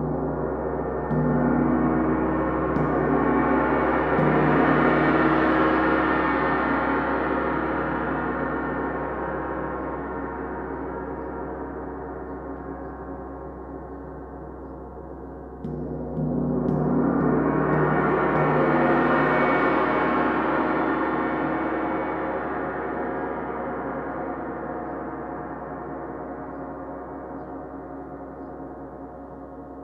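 A 90 cm (36-inch) handmade bronze wind gong struck with a soft felt mallet. A couple of strokes set it ringing, and its shimmer swells up bright over a few seconds before fading slowly. About halfway through it is struck again, with the same swell and long fade.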